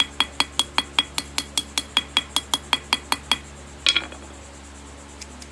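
Ball peen hammer tapping lightly and quickly on the steel pivot of a pair of scissors laid on an anvil, about five taps a second, each with a short metallic ring: peening the pivot over to tighten scissors that have too much play. The tapping stops a little after three seconds, and one sharper knock follows about four seconds in.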